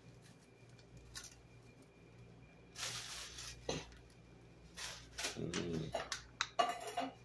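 Bay leaves being scattered by hand into a wok of pork, garlic and onions: light rustles and small clicks, with a brief pitched sound about five seconds in.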